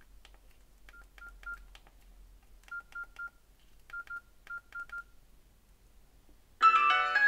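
Nokia 6290 keypad tones: short single-pitch beeps with key clicks, in quick runs of two or three, eleven in all, as its keys are pressed with the sounds switched on. Near the end a much louder melody of piano-like notes starts up.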